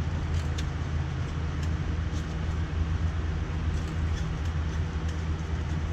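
A steady low mechanical hum made of several even low tones, with a few faint light clicks over it.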